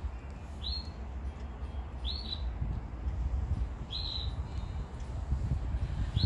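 A bird calling outdoors, a short high chirp repeated four times at fairly even intervals of about one and a half to two seconds, over a steady low rumble.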